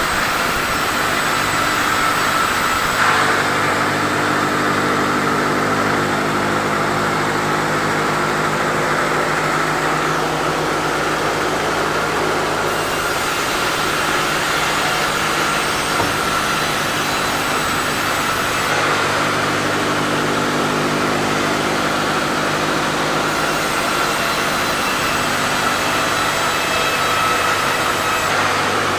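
Sawmill saw machinery running steadily while sawing teak. Its note changes abruptly several times.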